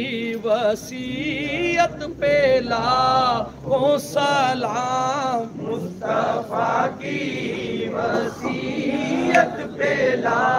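Men chanting a devotional salutation to the Prophet together in chorus, the sung line rising and falling.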